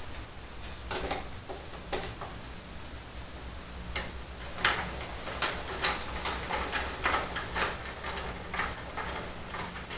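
Irregular light clicks and knocks of equipment being handled on a wooden bow tiller board, over a faint steady low hum.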